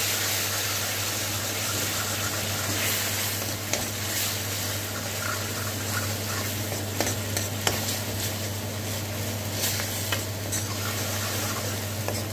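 Onion-tomato masala paste with yogurt sizzling in mustard oil in an iron kadhai, being stirred with a metal spatula that scrapes and clicks against the pan now and then, more often near the end.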